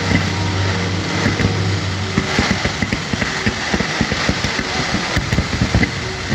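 Fireworks going off in a rapid, continuous crackle of pops, over a low steady hum that stops about two seconds in.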